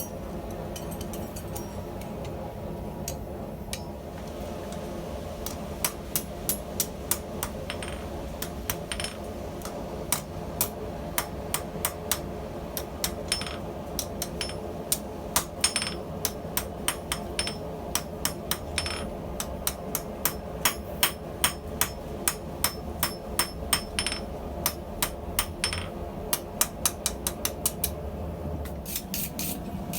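Hammer striking a steel scissor blade on an anvil to flatten its cutting edge. Light, quick blows come in irregular clusters, starting about six seconds in, over a steady hum.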